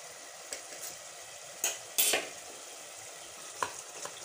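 Tomato-and-spice gravy sizzling and bubbling in oil in a pot as it fries down. A spoon knocks and scrapes against the pan a few times, loudest about two seconds in.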